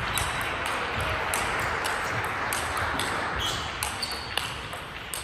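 Table tennis rally: sharp clicks of the celluloid ball struck by the bats and bouncing on the table, about one a second, over a steady hall murmur.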